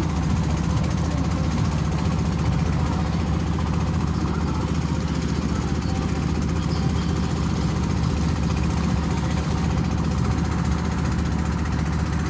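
Motor boat's engine running steadily, a constant low drone.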